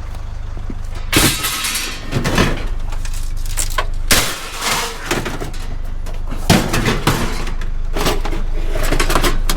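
Flat scrap metal being handled and loaded: a run of clattering metal crashes and scrapes, several seconds apart, over a steady low hum.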